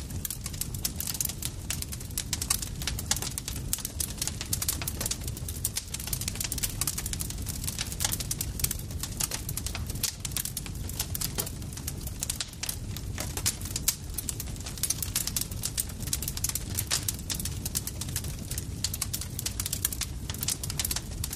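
Campfire crackling steadily: dense, irregular pops and snaps over a low, continuous rumble of burning.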